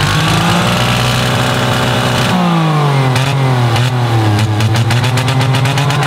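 Car engine running and being revved, its pitch holding, then dropping a little after two seconds in and rising and falling again, with a fast light ticking in the second half.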